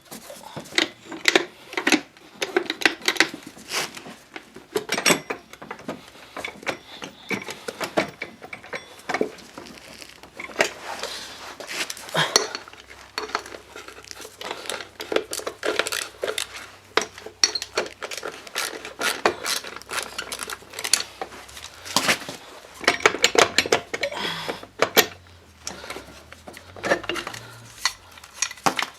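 Metal hand tools and bolts clinking and clicking irregularly while the variator cover of a Honda Dio scooter engine is being unbolted and taken off.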